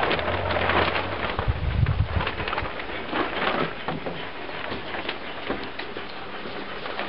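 Three-week-old puppies nursing at their mother: a dense crackle of suckling and smacking clicks with fur rustling close by. A brief low rumble comes about a second and a half in.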